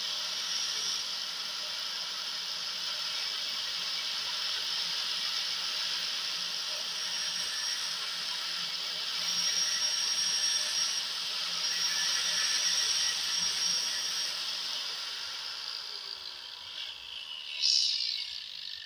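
Angle grinder running with a tungsten electrode held against its abrasive disc, grinding a point on the electrode for TIG welding: a steady hiss over the motor's hum. Near the end the hum drops out and a falling tone follows as the grinder winds down.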